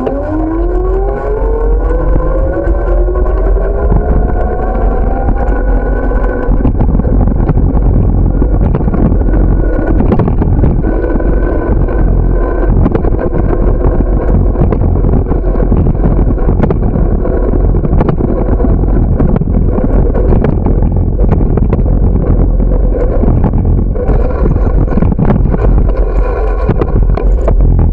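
Wind rumbling on the microphone of a moving bicycle, with a motor-like hum that rises steadily in pitch over the first six seconds and then holds steady.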